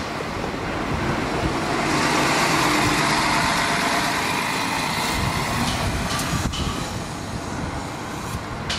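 Mercedes-Benz Citaro articulated city bus driving past close by. Its noise swells about two seconds in and then fades as it moves away.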